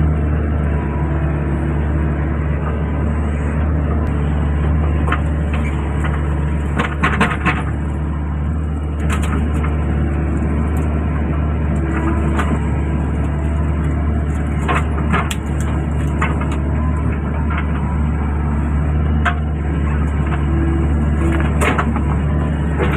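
Excavator diesel engine running steadily under work, with sharp cracks and knocks every few seconds.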